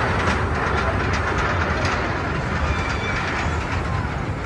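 Steady rumbling, rushing noise of amusement-park rides running, with no single event standing out.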